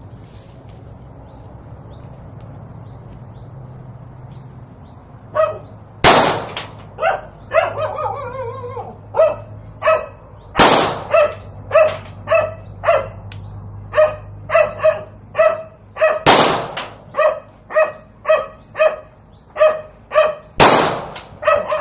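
Four gunshots from a .22 Magnum handgun, a few seconds apart, each with a short ringing tail. From just before the first shot, a dog barks over and over, about twice a second.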